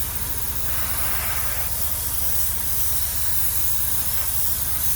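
Airbrush spraying a continuous hiss of compressed air and paint, applying a weathering wash, over a steady low hum.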